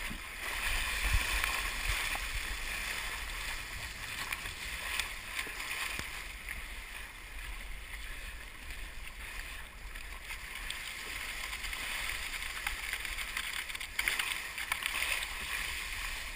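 Water rushing and splashing along an Epic V10 Sport surfski's hull and paddle blades as it runs downwind through choppy swell, with wind rumbling on the microphone. The rush swells louder about a second in and again near the end.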